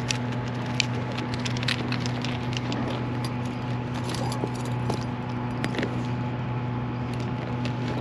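Scattered light clicks and crackles of a small rainbow trout being handled in a landing net among dry brush, over a steady low hum.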